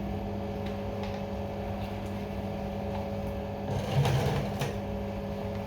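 A small electric motor humming steadily, with a brief clatter about four seconds in.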